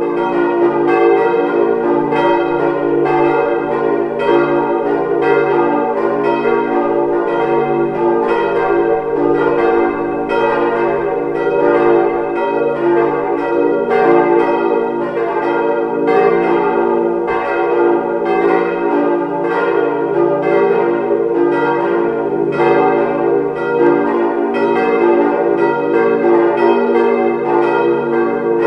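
Four 1949 Weule hard-cast iron church bells, tuned d', f', g' and b-flat', swinging together in a partial peal, their strikes overlapping in a continuous, dense ringing. Their strike notes are noticeably out of line with one another, a badly distorted strike-tone line typical of these ageing iron bells.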